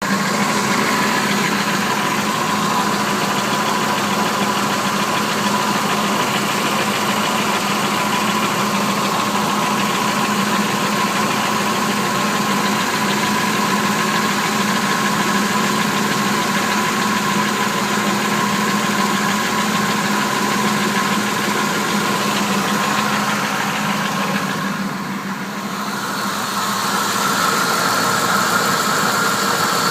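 Engine running steadily with a ticking from the bottom of the engine, which the owner suspects is a broken lifter. The sound dims briefly about 25 seconds in.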